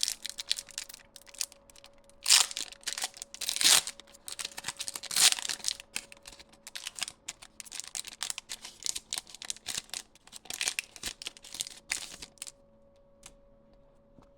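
Foil booster pack wrapper being torn open and crinkled, with three loud rips at about two, four and five seconds in and crackling rustle that stops a couple of seconds before the end.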